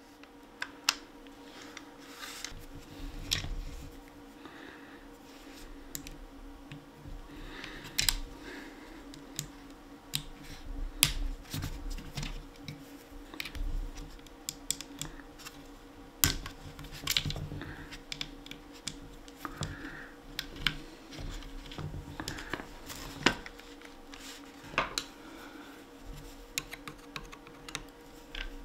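Scattered clicks and light knocks of hand disassembly on an Umarex HDX 68 air shotgun: its black handguard and small screws handled and set down on a rubber mat, with a screwdriver at work near the end. A faint steady hum runs underneath.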